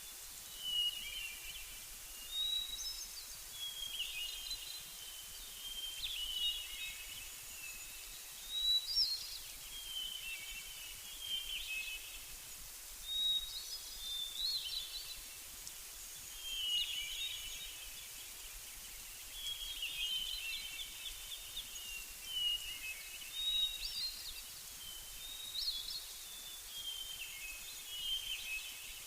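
Songbirds singing outdoors: short chirping, warbling phrases come every second or two over a faint steady hiss.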